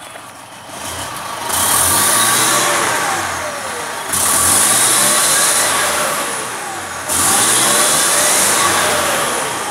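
Diesel pickup engine with a Bosch VE rotary injection pump, running cold with the pump's fuel delivery turned up. It is revved sharply three times, and the revs fall away slowly after each burst.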